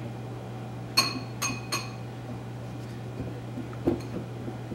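Wire whisk clinking against a glass mixing bowl while stirring dry flour: three quick ringing clinks a little after a second in, then softer whisking and a dull knock near the end.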